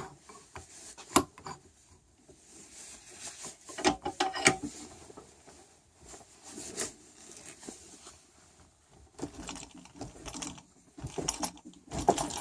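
Scattered metal clicks, knocks and rattles of tools and a bench vise working on a soldered aluminium joint, a sharp knock about a second in and more near four and seven seconds, with a denser clatter near the end.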